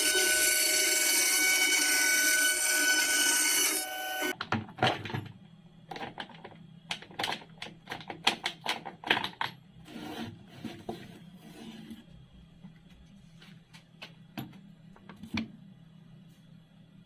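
Electric power tool running steadily with a high multi-tone whine, cutting off suddenly about four seconds in. It is followed by a series of irregular clicks and knocks over a low hum.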